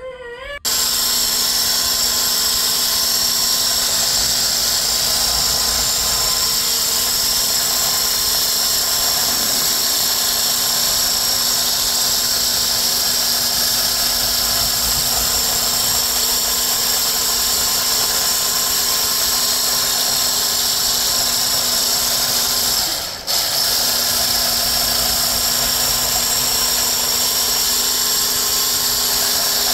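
Handheld electric stick blender running steadily in a bowl of pancake batter, with a high whine. It switches on suddenly under a second in, drops out for a moment about 23 seconds in, and then runs on.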